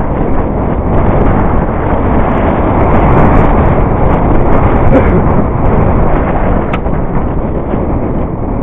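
Wind rushing over the microphone of a camera on a mountain bike speeding down a rough dirt singletrack, mixed with the rattle and crunch of the bike over dirt and loose stones, with a sharp knock about seven seconds in.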